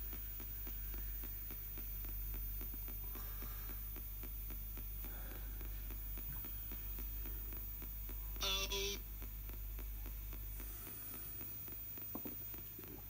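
Spirit box radio scanning down the AM band: a steady hum and static hiss broken by rapid faint clicks as it jumps from station to station. About eight and a half seconds in comes a brief, louder pitched snatch of broadcast sound.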